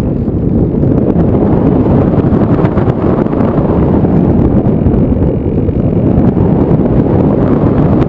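Airflow buffeting the microphone of a camera riding on an aircraft in flight: a loud, steady rush of wind noise, with a faint steady high-pitched whine above it.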